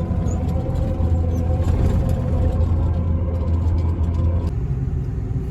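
Heavy farm machine's engine running steadily with a deep hum. A steady whine over it stops about four and a half seconds in.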